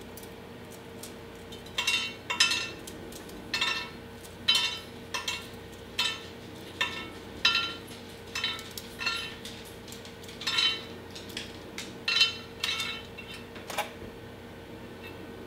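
Pieces of hard-baked dog biscuit dropping into a glass Pyrex baking dish, each landing with a short ringing clink. The clinks come in irregular clusters from about two seconds in until near the end.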